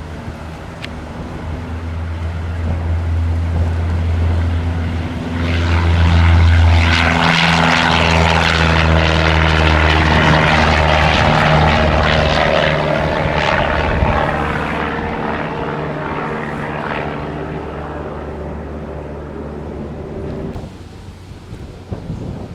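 Small propeller airplane's piston engine passing close by. It grows louder to a peak about six seconds in, holds for several seconds, then fades away and drops off sharply near the end.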